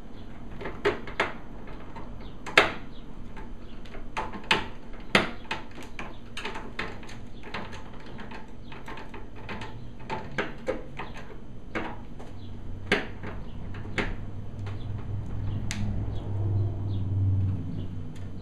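Irregular clicks and light taps as hands handle cables and the perforated sheet-metal board shields inside an open flat-panel TV. A low rumble comes in near the end.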